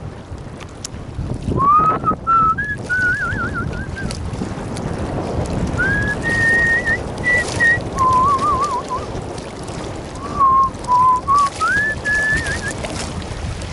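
A person whistling a tune in short phrases with little trills, over wind noise on the microphone.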